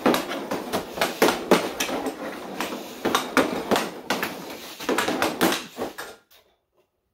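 Hockey stick blade clacking against a puck and the synthetic ice during quick stickhandling: irregular sharp taps, about two or three a second, that stop abruptly about six seconds in.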